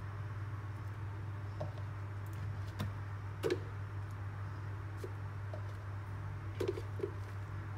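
Tomato pieces dropping into a plastic blender jar onto chopped greens, making a few soft knocks, the clearest about three and a half seconds in and near the end, over a steady low hum.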